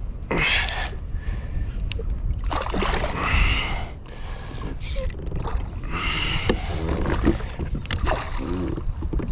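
Water splashing and sloshing against a fishing kayak in several irregular surges, over a steady low rumble of wind on the microphone.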